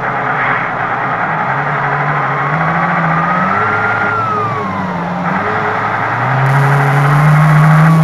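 An RC Tatra 130 model truck's sound module plays a simulated air-cooled diesel V8 with howling cooling fans, revving up and down as the truck drives. The fan whine climbs and then falls away about four seconds in, and the engine note rises again, louder, in the last couple of seconds.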